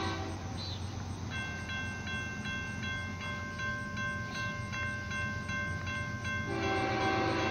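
A railroad crossing bell starts up about a second in and rings rapidly, about three strikes a second, as the crossing gates lower. An approaching freight locomotive's horn is sounding at the start, breaks off, and blows again near the end.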